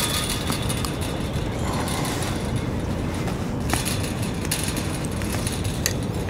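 Steady low rumble of outdoor background noise, with a few light clicks from handling the fish and lure.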